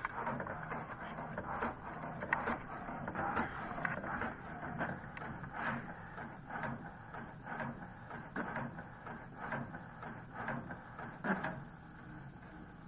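HP DeskJet 2700 inkjet printer printing its alignment sheet: the print carriage shuttles back and forth with a click about once a second. It quietens about eleven seconds in.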